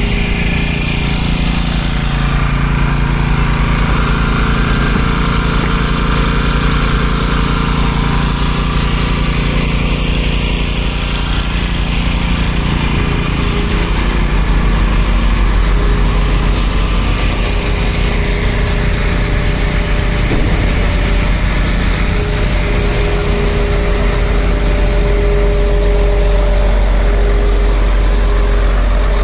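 Concrete pump truck's diesel engine running steadily under load while it pumps concrete, with a held mid-pitched whine over the low engine note.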